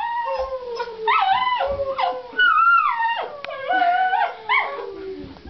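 Miniature Pinscher whining and yelping with excitement: a continuous run of high whines that slide down in pitch, each broken off by a short upward yelp.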